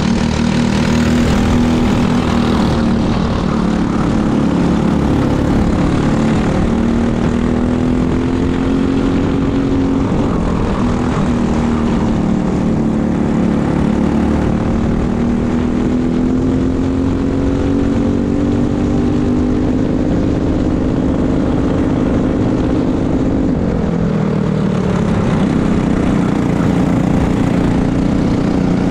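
Briggs & Stratton LO206 single-cylinder four-stroke kart engine running at racing speed, its pitch climbing and falling as the kart laps. Near the end the pitch drops sharply for a corner and then climbs again under acceleration, with wind noise throughout.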